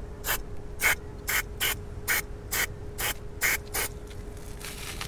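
Aerosol brake and parts cleaner sprayed onto a scooter's front brake caliper in about nine short squirts, roughly two a second, then a longer, fainter spray near the end.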